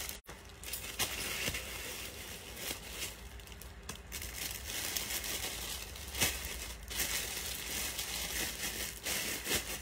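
Rustling and crinkling of clothing being handled and pulled on over the body, with a few light knocks and bumps.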